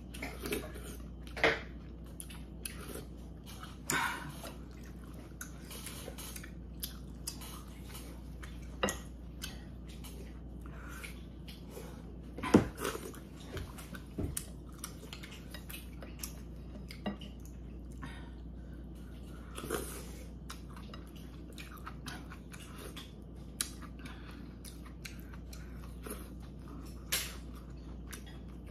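Close-up eating sounds: a person chewing rice cake and dumpling soup, with scattered light clicks of metal chopsticks and a spoon against a ceramic bowl. One sharp clink about twelve and a half seconds in is the loudest sound.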